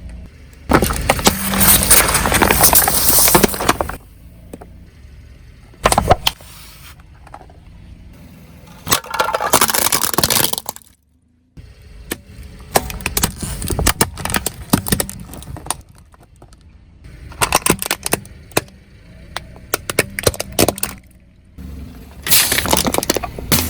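Objects cracking and crunching under a car's tyres as it drives over them: a series of separate loud crushing bursts, each one to three seconds long, with a single sharp crack about six seconds in.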